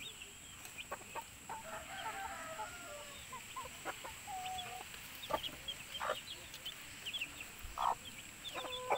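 Hen clucking among her chicks, with the chicks peeping in short, high, falling chirps that come thicker after about halfway.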